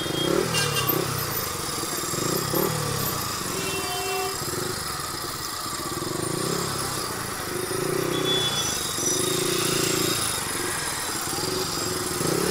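A motorcycle engine running at low speed in slow, congested street traffic, with repeated short horn beeps from the surrounding vehicles.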